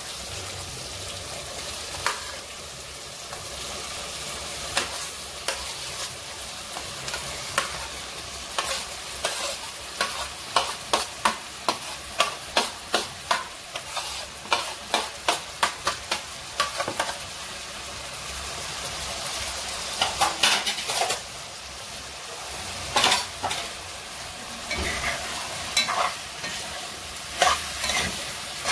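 Onions, sweet peppers and tomatoes sizzling in oil in a pot on a gas stove, with a spoon stirring and scraping against the pot. The spoon strokes come in quick, even runs of about two or three a second: a long run from about eight seconds in, and shorter runs near the end.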